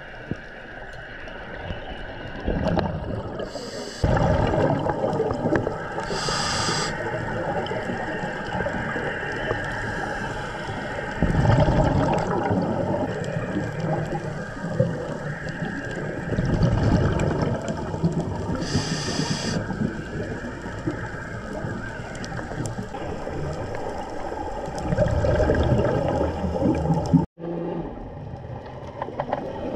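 Scuba regulator breathing heard underwater: short hisses of inhalation and loud surges of gurgling exhaust bubbles, repeating every few seconds.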